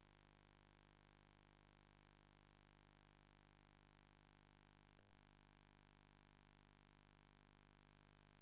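Near silence: a faint steady electrical hum, with one tiny click about five seconds in.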